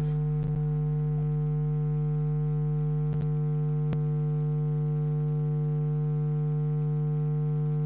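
A steady low electrical hum with a string of fainter overtones, unchanging in pitch and level, with a few faint clicks.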